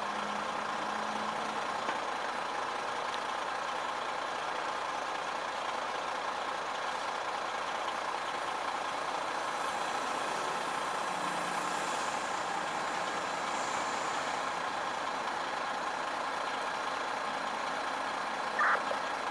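Fire engine's diesel engine idling steadily: an even, unchanging engine hum.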